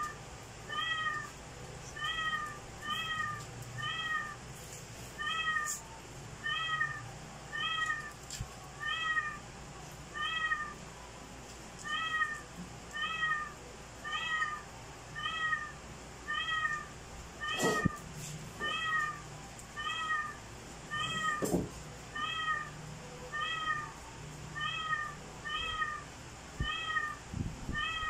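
A cat meowing over and over: short meows that rise and fall in pitch, in a steady series a little faster than one a second.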